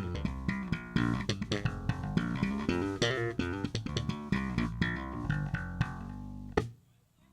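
Instrumental band music with guitar and bass guitar playing a busy run of quick notes over a steady bass line. Near the end a sharp hit is followed by a sudden stop and a brief silence.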